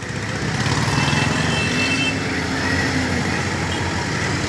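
Farm tractor engines running steadily as tractors drive slowly past.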